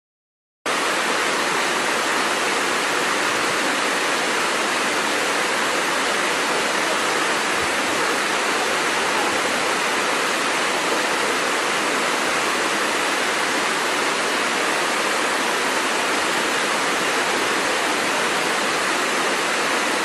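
Rushing water of a waterfall: a steady, even hiss of falling water that starts suddenly about half a second in.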